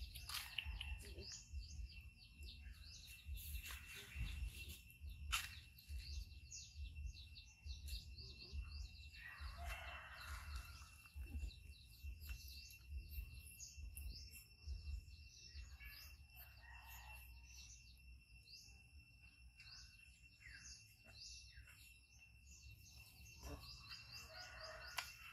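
Small birds chirping and twittering, many short quick calls throughout, over a steady high-pitched tone and a low rumble.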